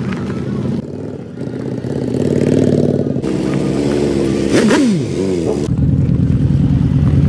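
Motorcycle engine running, with a quick rev that drops and climbs back about four and a half seconds in. It gets louder in the second half.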